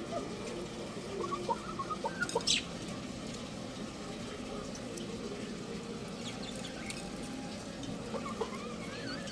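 Young rooster chirping in short, scattered peeps, a cluster early on and another near the end, with a few sharp clicks in between over a steady background hum.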